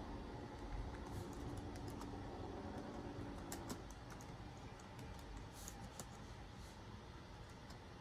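Light typing and clicking on a PowerBook G4's built-in keyboard and trackpad button, a loose scatter of faint key taps. A low hum in the background cuts off about halfway through.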